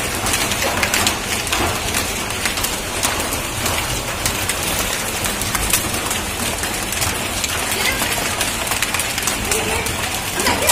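Hail falling and hitting the ground: a dense steady hiss of the storm with many sharp clicks of individual hailstones striking.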